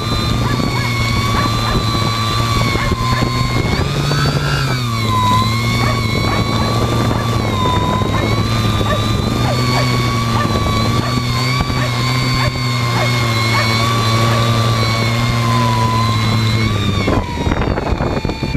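Carboncore hexacopter's electric motors and propellers whirring steadily, recorded on board. The pitch rises briefly about four seconds in, then settles. Near the end the motor tone drops away as the craft sets down on the snow.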